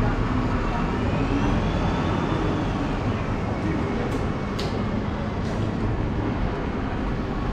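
Street traffic noise with a bus engine running, a steady low hum under it. A faint whine rises and falls in pitch for a few seconds, and three sharp clicks sound about halfway through.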